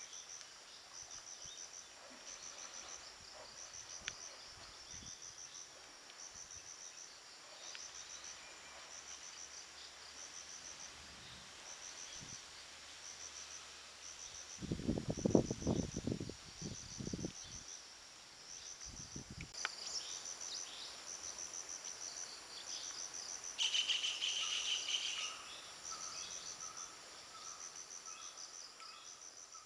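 Insects chirping in a steady, high-pitched pulse, somewhat more than one chirp a second. About halfway through comes a short run of loud low thuds, and near the end a second, lower pulsed trill joins in.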